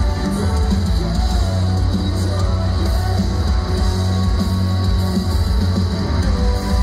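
Loud music from a stage PA, rock-styled, with heavy bass and a singer's voice carrying the melody.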